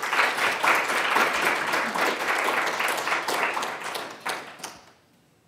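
An audience applauding, many hands clapping together, fading out near the end.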